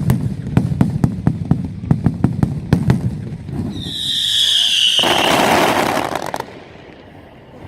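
Fireworks: a rapid string of sharp bangs for about three seconds, then a whistling firework screaming with a slightly falling pitch, followed by a loud rushing hiss that dies away about six seconds in.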